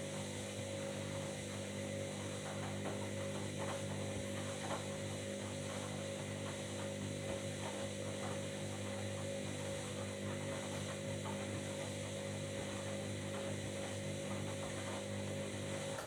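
Washing machine running, giving a steady electrical hum with faint scattered ticks, cutting off suddenly at the end.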